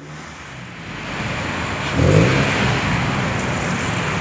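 Mitsubishi Lancer Evolution X's turbocharged four-cylinder engine idling. About two seconds in it is revved once, rising briefly before settling back.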